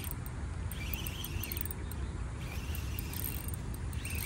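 Insects chirping in short, intermittent bursts over a low steady rumble.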